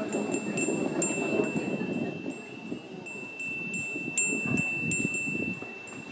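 Japanese metal wind bell (fūrin) tinkling in the breeze: its clapper taps the bell again and again, leaving a clear high ring of one pitch that hangs on between the strikes.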